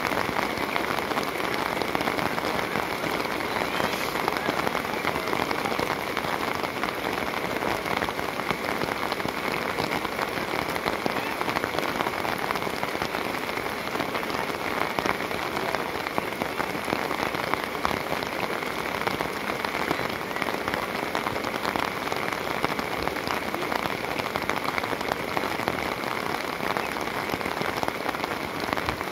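Steady rain, a dense even patter of raindrops.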